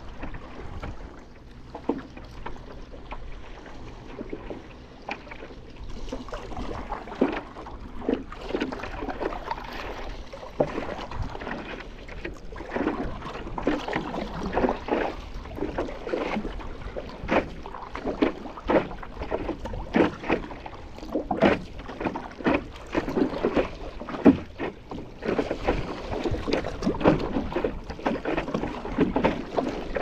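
Double-bladed paddle dipping and splashing into the sea stroke after stroke, with water slapping against the paddleboard, about one or two strokes a second. The strokes are sparse for the first few seconds, then come steadily.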